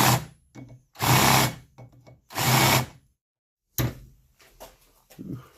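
Drill press running in short bursts of about half a second, four times, as a drill bit stands in for a chamfer tool on the edges of drilled holes in a metal plate. A sharp click follows a little before 4 seconds in.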